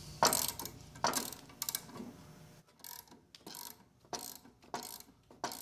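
Ratchet wrench clicking as it turns the forcing screw of a three-jaw gear puller, drawing a rusted, seized saw arbor out of its housing. There are short bursts of clicks about a second apart at first, then lighter, quicker clicks from about halfway through.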